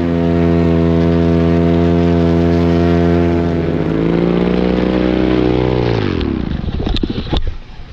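Paramotor engine running steadily at high power. Its pitch rises a little about three and a half seconds in, then it winds down and stops about six seconds in. A few scattered clicks and some wind noise follow near the end.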